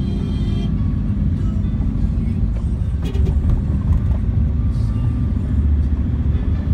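Dense road traffic of trucks and cars passing close by, a steady heavy low rumble of engines and tyres heard through an open car window.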